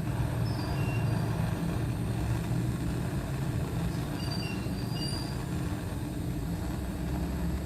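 Butane torch flame burning steadily with a low rumble, heating a steel pull-starter part so it can be bent without snapping.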